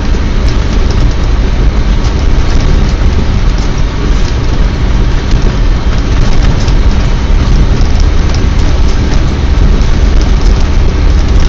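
Iveco Massif 3.0 HPT turbodiesel driving through deep snow, heard inside the cab: a steady engine drone under a loud, dense hiss of tyres and snow spray hitting the body.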